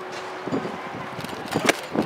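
Sharp pops near the end as a pitched softball smacks into the catcher's leather mitt.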